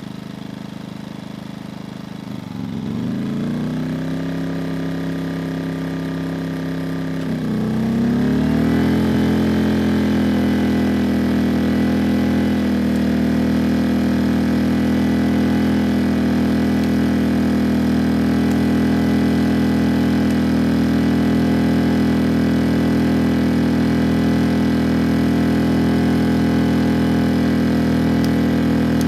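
ERAYAK 2400W portable inverter generator's engine running, dipping briefly and then speeding up to a higher, louder speed about three seconds in and again about eight seconds in, as electrical load is added; it then runs steadily at the higher speed.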